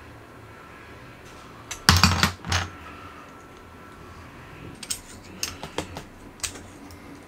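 Small blaster parts and a screwdriver clicking and knocking together as they are handled during assembly: a quick burst of knocks about two seconds in, then a few lighter ticks.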